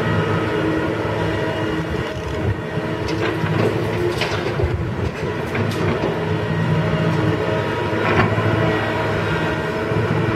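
Komatsu PC150 excavator's diesel engine running steadily under hydraulic load while the machine swings and dumps. Several sharp clatters around the middle, and another near the end, as dirt and rock drop from the bucket into the steel dump truck bed.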